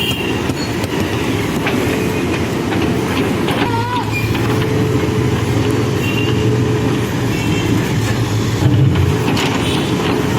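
Backhoe loader's diesel engine running steadily under working load. A short squeal comes about four seconds in, and there are scattered light knocks.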